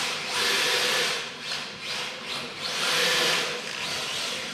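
Radio-controlled MST drift car sliding across a tiled floor: its hard drift tyres scrub and hiss in two long swells, each about a second, over a faint steady whine from the car.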